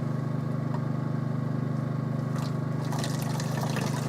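Steady low hum, with faint rustling and trickling of orange drink powder being poured from its packet into a plastic bottle, picking up a little after about two seconds.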